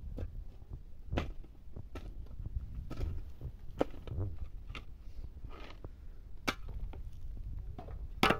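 Footsteps on stony, gravelly ground: irregular sharp crunches and clicks about once a second, over a steady low rumble on the microphone.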